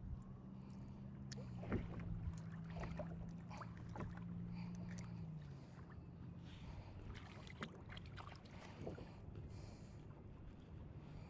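Small clicks, knocks and water sounds around a kayak on the water, with a low steady hum that stops about halfway through, dropping slightly in pitch as it ends.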